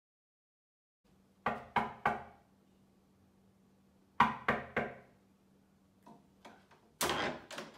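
Knocking on a wooden front door: three knocks, a pause, then three louder knocks. A few lighter taps and a short rattle at the door follow near the end.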